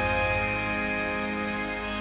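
Ambient synthesizer music: sustained, layered synth pad tones holding one chord, with the chord changing just before and just after.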